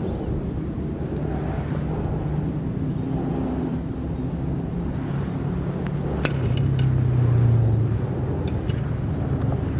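A low, steady motor engine drone that swells, loudest about three-quarters of the way through, then eases off as if passing by. A few light sharp clicks fall over the loud part.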